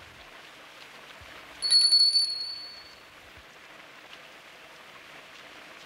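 Shop doorbell rings once as the door opens, a bright ring with a few jangling clicks about a second and a half in, dying away over about a second. A steady hiss of rain lies underneath.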